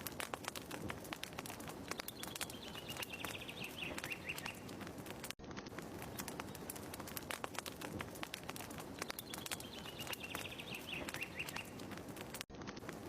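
Looped fireplace ambience: a wood fire crackling with dense irregular pops and snaps. A bird's short descending trill sounds twice, about 2 s and 9 s in. The loop restarts with a brief dropout about 5 seconds in and again near the end.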